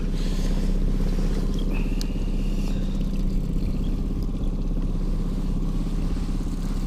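Boat outboard motor running steadily at trolling speed: a low, even hum.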